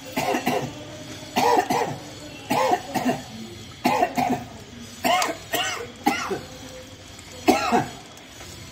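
A man coughing and gagging with his mouth open, in short voiced bursts about once a second, during neti nasal cleansing.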